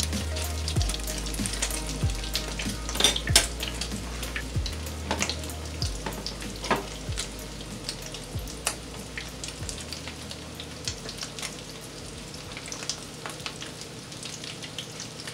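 Flour-and-egg breaded shrimp frying in hot oil in a pan: a steady sizzle full of crackles and sharp pops, the loudest pops about three seconds in, the sizzle easing somewhat after the first few seconds. A fork stirs the shrimp in the pan at the start.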